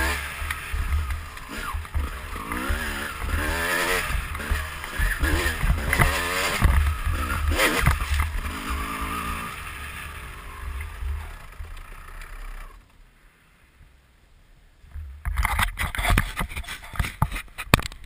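2004 Kawasaki KX250 single-cylinder two-stroke engine revving up and down while being ridden, fading away about eleven seconds in to near quiet. From about fifteen seconds, irregular rubbing and scraping noises on the helmet-camera microphone as a hand or arm covers it.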